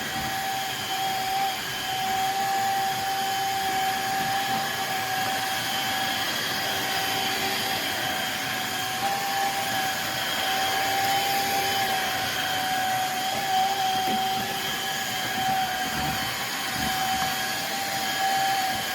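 Shark HydroVac MessMaster cordless wet-dry vacuum-mop running steadily, its motor giving a constant whine over a hiss of suction.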